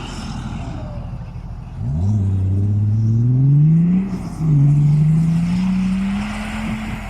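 BMW M51 2.5-litre straight-six turbodiesel, on a larger M21 turbo and exhaust at 1.2 bar of boost, accelerating hard with its pitch rising steadily. It breaks off briefly about four seconds in, as on a gear change, then pulls again and climbs until near the end.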